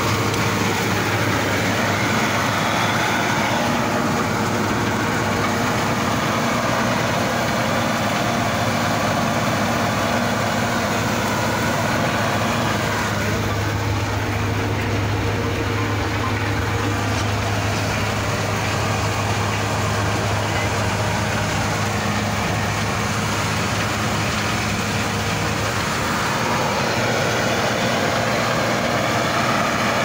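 Laverda 3890 combine harvester's diesel engine running steadily, heard from inside the cab as a constant low hum.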